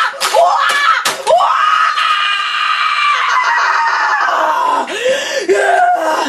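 A boy screaming: a few short shrieks, then one long high scream held for about three seconds, breaking into short rising-and-falling wails near the end.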